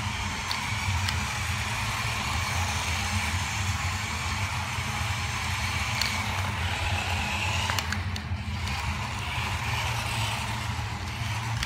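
Small electric motor of an Adventure Force Metal Racer toy RC truck whining as it drives, its rubber tires running on bare concrete, with a few light clicks, over a steady low hum.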